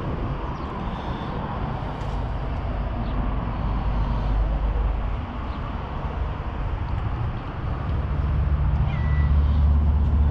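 Domestic cat meowing, over a steady low rumble that grows louder near the end.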